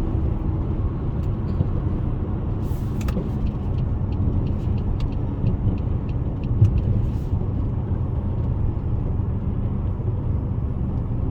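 Supercharged car driving along, its engine and road noise making a steady low rumble.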